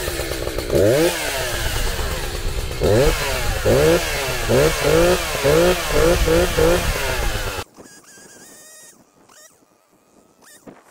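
Echo CS-590 two-stroke chainsaw running and being revved, with a quick run of throttle blips about two a second in the middle. It stops abruptly about two-thirds of the way through, leaving only faint high chirps.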